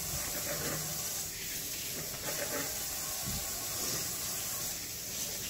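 Kitchen faucet running steadily into a stainless steel sink, with potatoes being rinsed under the stream.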